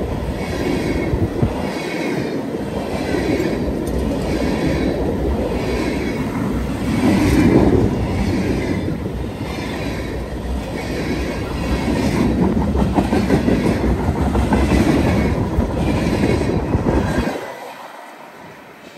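Freight cars of a long mixed manifest train (tank cars, then boxcars) rolling past close by on jointed track, with a rhythmic wheel clatter about once a second. The noise falls away sharply near the end as the last car goes by.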